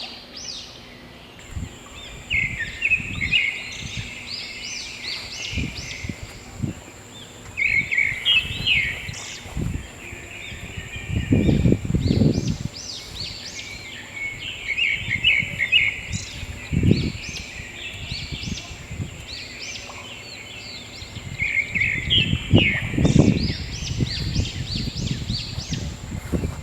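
Birds calling in four bouts of quick repeated chirping notes, with low thuds in between. A steady thin high tone, such as an insect's, starts about a second and a half in.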